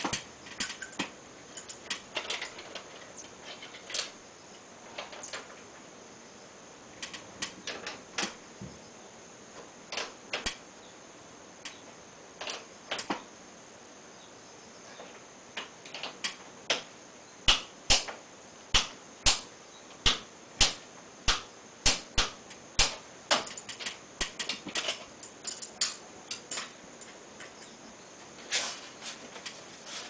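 Hand-tool clicks and taps from air-conditioner installation work at a window frame, scattered and irregular, with a steady run of about ten sharper knocks, under two a second, a little past halfway.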